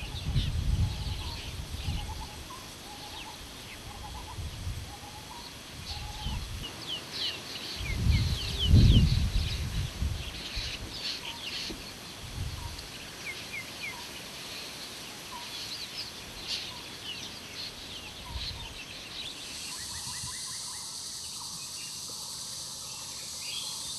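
Birds calling, with many short, quick falling chirps and some lower notes, over a low rumble that swells about eight to ten seconds in. From about twenty seconds, a steady high insect buzz of crickets takes over.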